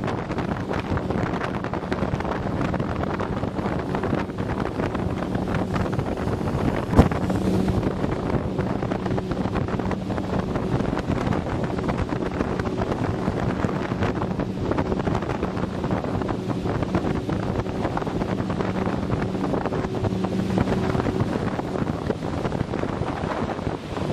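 A rigid inflatable boat's engine running with a steady, unchanging hum, with wind buffeting the microphone. A single sharp knock about seven seconds in.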